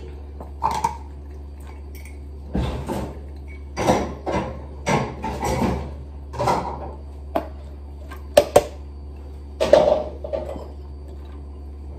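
Dishes and cookware being loaded into a dishwasher: a string of irregular clatters and clinks of crockery and pans, with two sharp knocks in quick succession about eight and a half seconds in, over a steady low hum.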